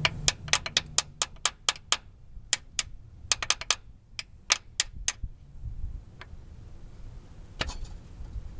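Sharp metal clicks and taps, about three or four a second for roughly five seconds, then a few scattered ones, as the stuck gear shift lever is worked loose from the TH350 transmission's shift shaft.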